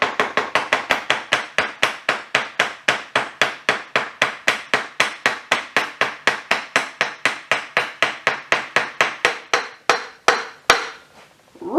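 Quick, steady tapping on a Honda CBR300R's front wheel axle, about five sharp strikes a second, driving the axle home through the wheel and fork; the taps spread out and stop shortly before the end.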